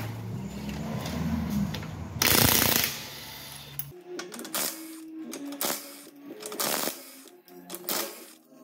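Cordless impact wrench running in short bursts on the wheel bolts, the loudest burst about two seconds in, over a low hum that cuts off about four seconds in. Background music then plays under a few more short sharp bursts.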